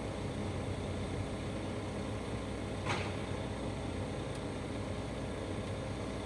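Liebherr LTM 1120-4.1 mobile crane's diesel engine running steadily at idle, about 600 rpm, heard from inside the operator's cab while the superstructure slews slowly toward 0°. A brief squeak about three seconds in.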